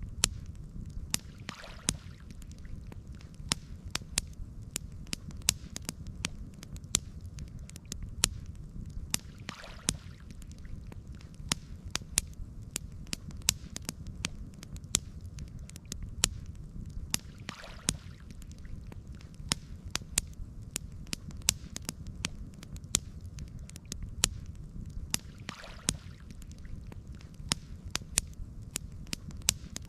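Campfire crackling: frequent sharp pops and snaps of burning wood over a steady low rumble, with a soft whoosh about every eight seconds.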